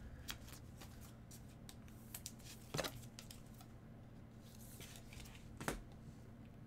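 Faint plastic rustling and light clicks of a trading card being slid into a clear plastic sleeve and top loader by gloved hands. There are two sharper clicks, one about three seconds in and another near the end, over a faint steady hum.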